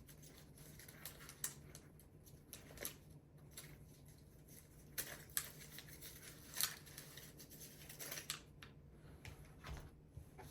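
Faint handling of boxed accessories and their packaging: scattered light clicks and rustles, a few sharper than the rest, over a steady low hum.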